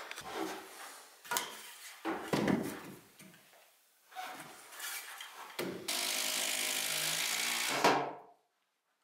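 Knocks and rubbing of tools and timber being handled during framing work, then a power tool's motor runs steadily for about two and a half seconds and stops abruptly near the end.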